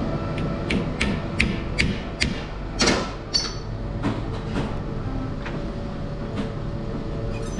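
Broom winding machine humming steadily, with a series of sharp knocks, about two to three a second, as a wooden broom handle is set into its spindle chuck, then two louder knocks around three seconds in, the second with a short metallic ring.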